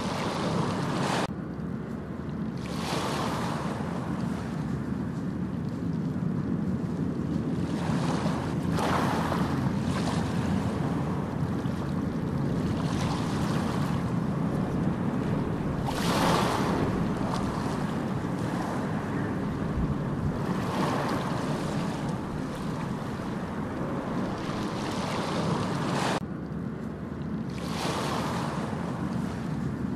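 Steady rushing noise that swells and eases every few seconds, with brief dips about a second in and near the end.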